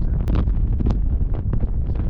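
Strong wind buffeting the camera microphone: a heavy, continuous low rumble broken by irregular crackling pops.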